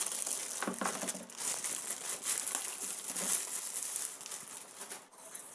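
Packaging being unwrapped and handled, with continuous irregular crinkling and rustling that dies away near the end.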